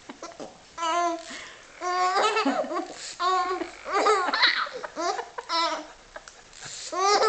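Baby laughing in about six short, high-pitched bursts with quiet gaps between them, laughing through a bout of hiccups.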